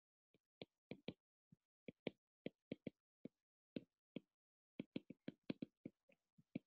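Stylus tapping and clicking on a tablet screen during handwriting: a run of short, faint, irregular clicks, a few a second, with brief pauses between bursts.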